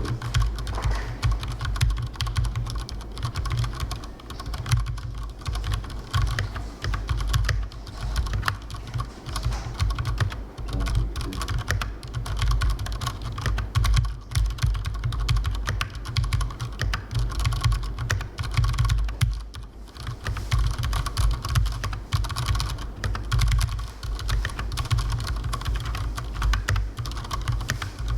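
Cherry MX 1.0 TKL mechanical keyboard being typed on steadily: a dense, unbroken run of key clicks, with a low thud running under the clacking.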